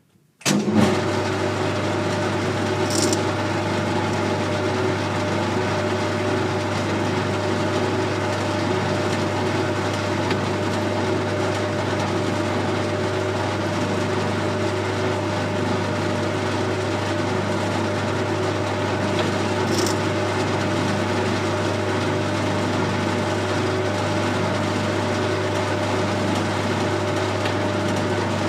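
Colchester Student metal lathe starting up about half a second in, then running steadily with a low motor hum and gear whine. There are two light clicks, one early and one near the end.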